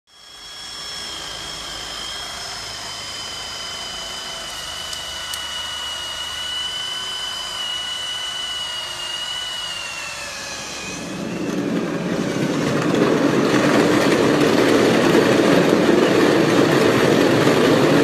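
Angle grinder running with a high steady whine that dips slightly about ten seconds in. Then a louder rough rushing noise takes over as the wheel on the grinder is driven against the shop floor, spinning the rider around on a plastic seat.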